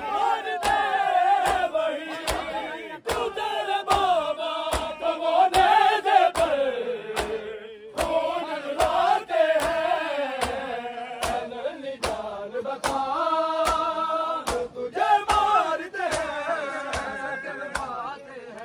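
A group of men chanting a Saraiki noha together in a mourning procession, kept in time by a regular beat of sharp matam strikes.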